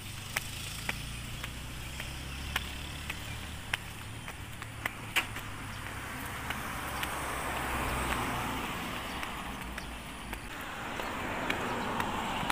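Footsteps on pavement, about two a second, while road traffic goes by: one car's sound swells and fades around the middle, and another builds near the end.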